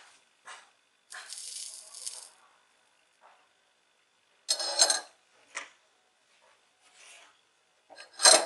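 Handling noises of wires being worked against a plastic wire-stripping tool during soldering: scattered small clicks, a rustling scrape about a second in, and two louder short rattles, one about halfway and one near the end.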